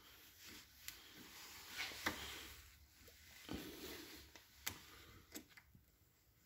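Faint metallic clicks and scrapes of a thin metal pick working a spiral retaining ring out of its groove in a metal cylinder, as the ring's end is prised up and unwound.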